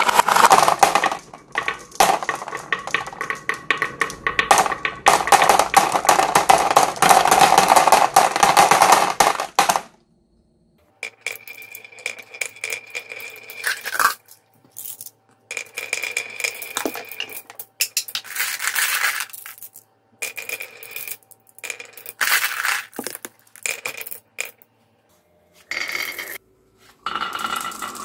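Glass marbles rolling and clattering through a marble run, clicking against the track and each other. A dense, busy clatter for about the first ten seconds, then shorter runs of rolling and clicks broken by sudden silent gaps.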